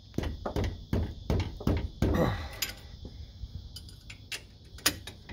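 Metal clanks and knocks from a breaker bar working a brake caliper bolt tight, a quick run of about nine sharp strikes in the first two seconds or so, then a few scattered clicks.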